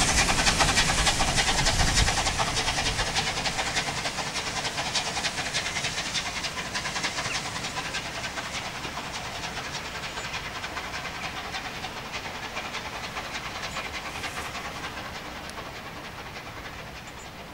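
A steam train running away into the distance after passing, its rapid wheel-and-rail clatter fading steadily.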